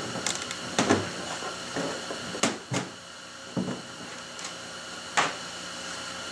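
Irregular handling clicks and knocks, about half a dozen, as wiring is worked and fished through a small hole in a plastic kayak hull, over a steady low hum.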